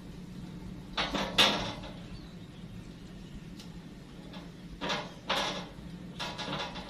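Sweet potatoes being set onto the wire grate inside a stainless steel Apollo drum oven: a few knocks and scrapes on the metal, a pair about a second in, another pair around five seconds, and several quick ones near the end.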